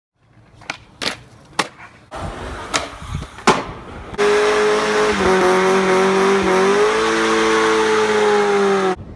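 A few sharp knocks, then from about four seconds in a long, loud squeal of a drifting car's tyres, its pitch dipping and rising, cutting off suddenly near the end.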